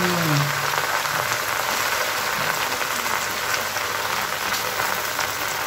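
Gongura (sorrel) leaves frying in hot oil in a pot, with a steady sizzle.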